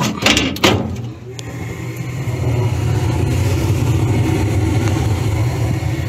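Sheet-metal furnace door panel knocked into place a few times in the first second, then the gas furnace running with a steady low hum and rumble from its motors that builds over about two seconds and holds. The furnace is firing normally on its newly replaced control board.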